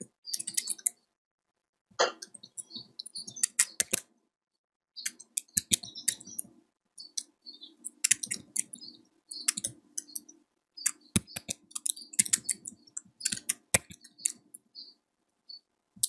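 Computer keyboard being typed on: irregular runs of key clicks with pauses of about a second between the runs.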